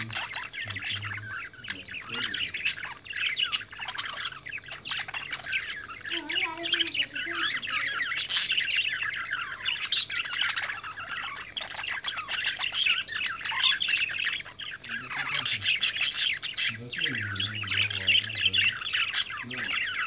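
A flock of budgerigars chattering and squawking without a break, a dense, rapid warbling of many overlapping calls. Lower-pitched sounds come in briefly twice, in the middle and near the end.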